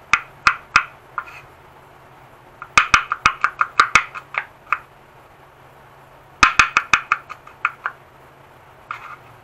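Kitchen knife mincing garlic on a wooden cutting board: quick runs of sharp chops, about five a second, with short pauses between the runs.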